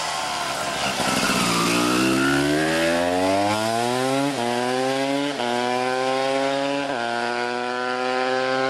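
Single-rider motorcycle engine accelerating hard out of a bend and up a hill: the pitch climbs steadily and then drops three times as the rider changes up through the gears.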